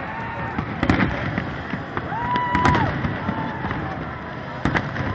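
Fireworks going off: several sharp bangs a second or two apart, the last two close together near the end, over steady crowd noise. About two seconds in a steady whistled tone is held for under a second.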